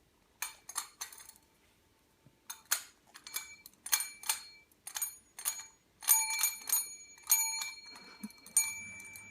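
A small metal bell rung repeatedly by a miniature dachshund: irregular runs of short dings that come thicker from about six seconds in, the rings overlapping and sustaining between strikes, then dying away near the end.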